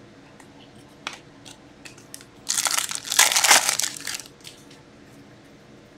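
A few faint taps, then the foil wrapper of a hockey card pack crinkling loudly for about two seconds as hands crumple it.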